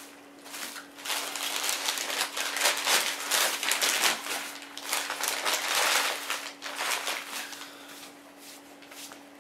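Rustling and crinkling handling noise in irregular bursts for several seconds, fading near the end, over a faint steady hum.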